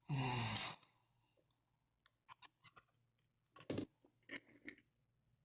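Scattered sharp clicks and small cracks, a few close together with the loudest about two-thirds of the way in, as the old screen and LCD are pried off a Samsung Galaxy S5. A short vocal sound comes right at the start.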